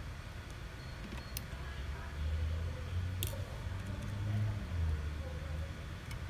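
Small sharp clicks of tools working on a phone's parts, twice, with a low hum swelling up in the middle.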